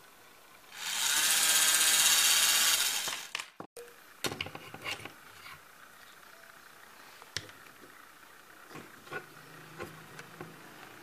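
Toy helicopter's small electric motor and plastic gear spinning a rotor blade as a fan: a loud, high whirring for about two and a half seconds that stops suddenly, followed by scattered faint clicks.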